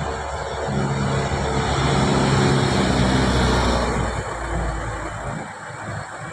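A motor vehicle passing close by: its engine and tyre noise swell over the first couple of seconds, peak in the middle, and fade away after about four seconds.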